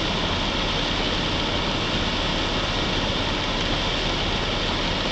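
Floodwater rushing across a field and over a road, a steady, unbroken rushing noise.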